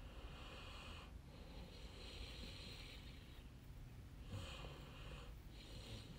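Faint breathing close to a microphone: four soft, hissing breaths, each about a second long, with short pauses between.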